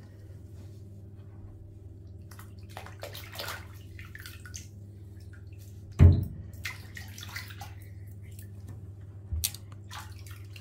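Bathwater in a tub with small splashes and drips over a steady low hum, and one louder knock about six seconds in.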